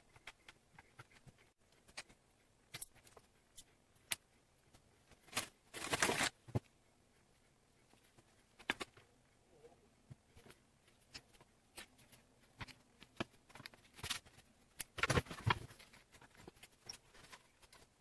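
Small handling noises of leatherwork at a marble-topped bench: scattered light taps and clicks as the leather piece and tools are moved, with two louder rustles, about six seconds in and again near fifteen seconds.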